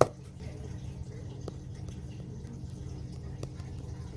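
A sharp click right at the start, then a few faint ticks over a steady low hum.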